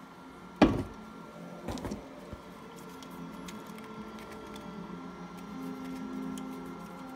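A full aluminium beer can set down on a tabletop with one sharp knock just over half a second in, followed about a second later by a few lighter knocks and clinks as cans are shuffled. A steady faint hum runs underneath.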